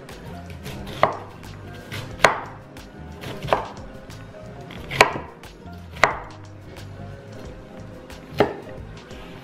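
Kitchen knife cutting florets from a cauliflower head on a wooden cutting board: six sharp knocks of the blade striking the board at uneven intervals, roughly one every one to two seconds.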